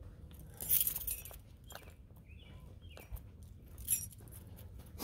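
Footsteps and camera handling noise while walking: a few sharp scuffs and clinks over a low rumble, with a brief high two-part chirp about halfway through.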